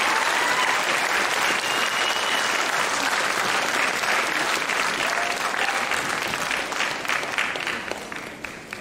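Audience applauding steadily. The clapping thins out near the end into a few separate claps.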